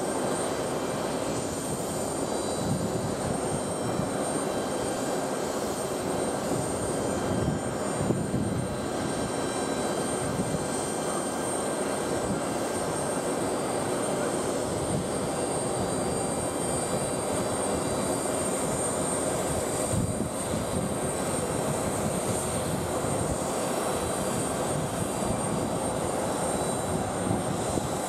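United Airbus A320-family jet airliner landing: a steady, continuous jet engine noise through the approach, flare and rollout on the runway.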